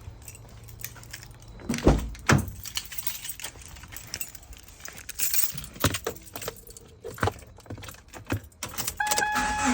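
Car keys jangling, with scattered clicks and two solid knocks about two seconds in, as the key is readied for the 2014 Subaru Impreza's ignition; near the end an electronic dashboard warning chime starts, a steady tone pulsing on and off.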